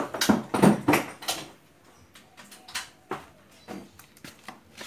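Knocks and clatter of tools and metal parts being handled while a pressure washer is taken apart: a quick run of sharp knocks in the first second and a half, then scattered single clicks.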